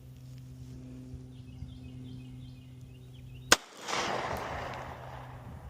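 A single shot from a SIG P365X 9mm pistol about three and a half seconds in: a sharp crack followed by a rolling echo that fades over about a second and a half.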